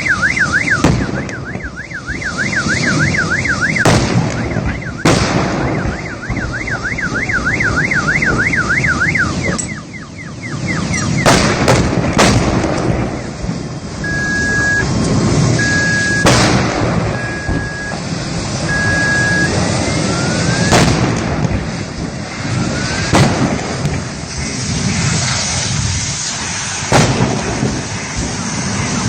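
A car alarm warbling in fast up-and-down sweeps in two spells, then four short beeps, over a steady loud rushing noise from a burning electric car, with sharp bangs every few seconds.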